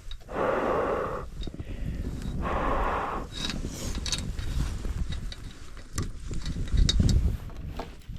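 A person blowing hard twice on an iced-over metal gate latch to thaw the freezing rain off it, then clicks and knocks as the latch is worked, with a dull low thump about seven seconds in.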